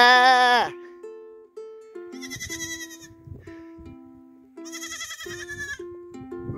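Goats bleating: one loud bleat at the start, then two higher, quavering bleats about two and five seconds in. Light ukulele music runs underneath.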